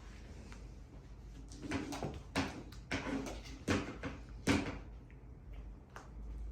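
Kittens at play: a run of irregular light knocks and scuffs on the floor and household things, from about a second and a half in until near five seconds.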